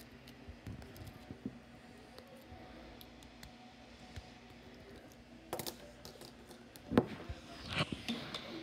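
Scattered small clicks and handling knocks, with a louder knock about seven seconds in and a few more just after.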